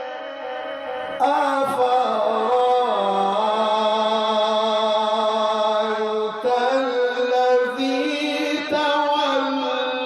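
A man reciting the Quran in the melodic mujawwad style, holding long ornamented notes with turns and slides in pitch; a fresh phrase begins about a second in and another around six seconds in.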